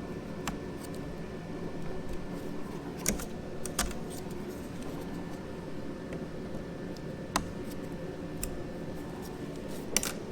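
Sharp metallic clinks and taps from engine parts being handled, about five scattered through, over a steady low hum of shop background.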